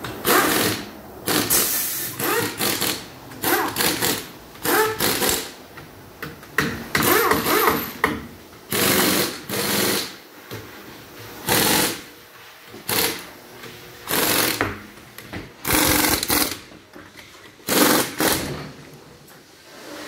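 Pneumatic impact wrench run in short repeated bursts with a rapid rattle, about one burst a second with uneven gaps, typical of lug nuts being spun off or run on during a tyre change.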